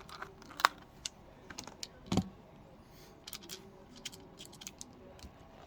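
Small irregular clicks and taps of tools and phone parts being handled during a phone repair, with a louder knock a little after two seconds in.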